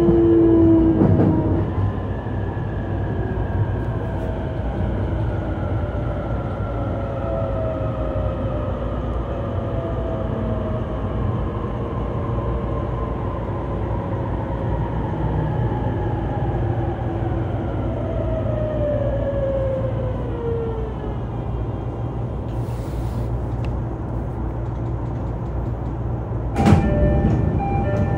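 Running noise heard inside an E233-3000 series EMU motor car (MoHa E233-3639, with a Hitachi IGBT-VVVF inverter and MT75 traction motors): a steady rumble of wheels on rail under an inverter and motor whine that falls slowly in pitch for about twenty seconds as the train slows. Near the end there are two loud knocks with brief ringing tones.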